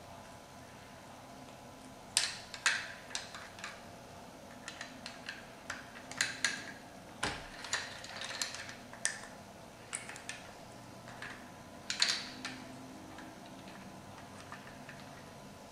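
Plastic LEGO bricks clicking and knocking together as they are pressed onto a model, in irregular sharp clicks that start about two seconds in, with the loudest about twelve seconds in.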